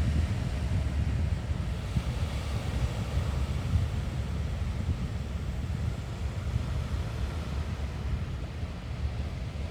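Wind buffeting the microphone in a steady, uneven rumble, with sea surf hissing underneath.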